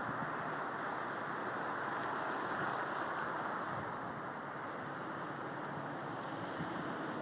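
Steady traffic noise from cars driving along a snow-covered street, the tyres and engines making a continuous hiss.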